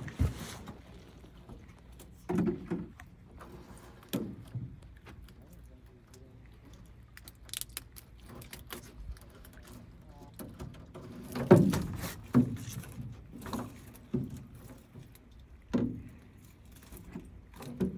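Drift gillnet hauled by hand over a boat's side: irregular knocks and rattles as the net, its floats and a meshed sockeye salmon strike the hull, the loudest cluster about two-thirds of the way through.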